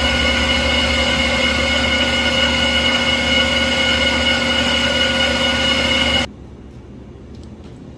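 Metal lathe running, its motor and gears giving a steady whine at several pitches. It cuts off abruptly about six seconds in, leaving a faint low hum and a few light clicks.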